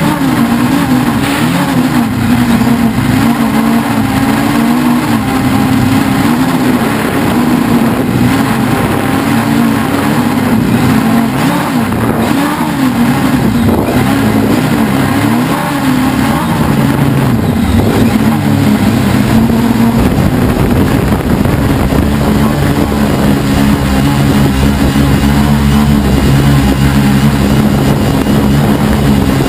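Helimax Form 500 quadcopter's four brushless motors and propellers buzzing in flight, heard close from a camera on the airframe. The pitch wavers up and down as the motors change speed, then holds steadier in the last third.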